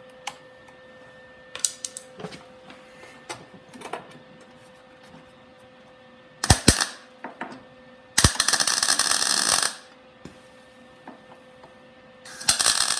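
MIG welder tacking thin car-body sheet steel in three short bursts of crackling arc: a brief one about halfway through, a steady one of about a second and a half shortly after, and another starting near the end. A few light clicks and taps come first.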